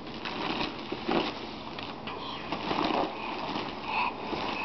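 Plastic wrapping crinkling and rustling as a toddler grabs and pushes a large plastic-wrapped package, in irregular bursts.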